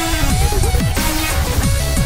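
Electronic music with a heavy bass line and synth notes that slide down in pitch again and again.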